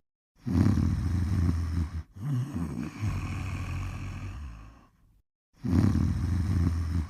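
Snoring in slow breath cycles: a loud, rough snore about half a second in, then a softer rattling breath that fades away. After a short silence the loud snore starts again near the end.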